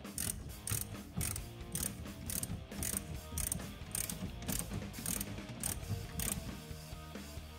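Hand ratchet wrench clicking in quick back-and-forth strokes, about two a second, as a bolt on a microcar's brake caliper is turned; the strokes stop a little over a second before the end.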